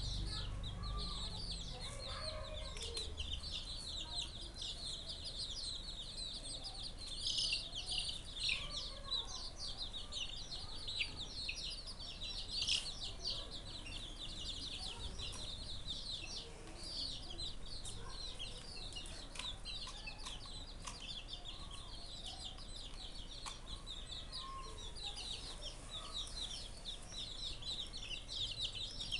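A group of young chicks peeping continuously, many short high-pitched cheeps overlapping, with a few louder calls about a quarter to halfway through.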